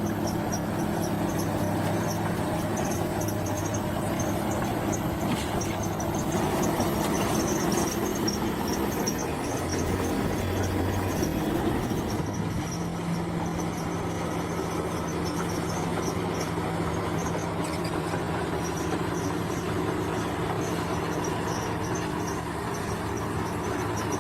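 Bulldozer's diesel engine running steadily under load, its note shifting about halfway through, with a regular high squeaking pulse over it.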